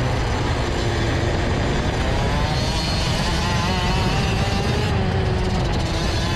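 Rotax Max DD2 125 cc two-stroke kart engine running under way, its pitch wavering gently up and down, under heavy wind rumble on the onboard microphone.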